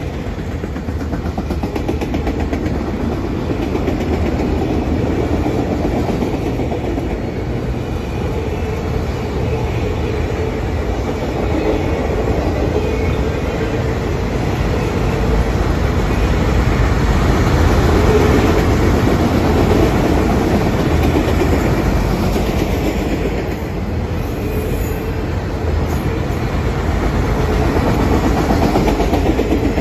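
Freight train of enclosed autorack cars rolling past, a steady loud rumble with the wheels clacking over the rail joints.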